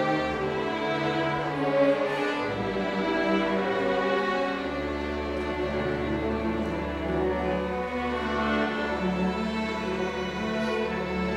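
Orchestra playing, with bowed strings prominent in held, layered notes. A low bass note enters about four and a half seconds in and holds.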